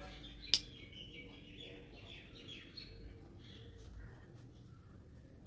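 Long-bladed pruning scissors snipping through Murraya exotica branches: two sharp clicks, one about half a second in and one at the very end.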